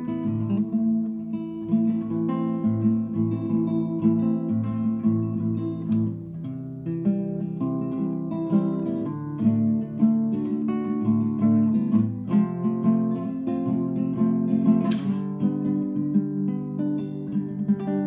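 Classical guitar played fingerstyle: plucked bass notes under picked chords, the chords changing every second or two, with one sharper strummed stroke near the end.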